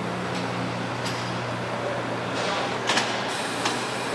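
Honey extracting line running: a steady machinery hum, with a few short clacks, the loudest a pair about three seconds in.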